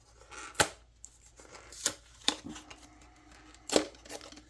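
Flashlight retail packaging being opened by hand: several sharp snaps and clicks with softer rustling of the packaging in between.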